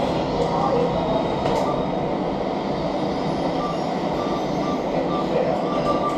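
Steady rushing background noise, with short high electronic beeps repeating about every half second from about halfway through: an ATM's keypad beeping as keys are pressed.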